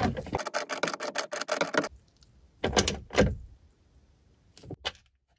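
Craftsman ratchet and socket clicking rapidly as a half-inch nut on the battery hold-down is tightened, stopping about two seconds in. Then two sharp knocks and a few faint clicks as the tool is moved.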